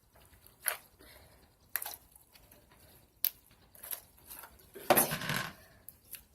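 Blue fluffy slime being poked and handled, giving a few short squishy pops and crackles, with a louder, longer squish about five seconds in.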